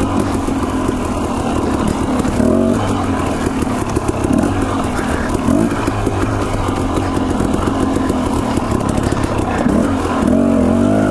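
Husqvarna dirt bike engine running at trail speed on rocky single track, its revs rising and falling repeatedly with the throttle.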